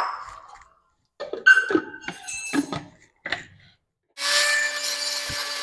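A few short knocks and clinks as the plastic jar is fitted onto a Panasonic mixer grinder. About four seconds in, the grinder's motor starts and runs steadily, blending mangoes into the kulfi mixture.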